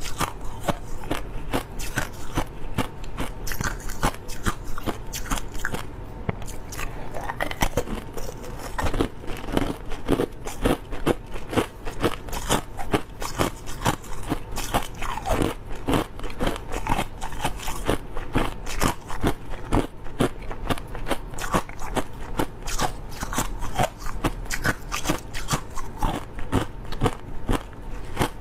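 Close-up crunching of clear crushed ice being bitten and chewed: rapid, continuous brittle cracks and crunches, several a second.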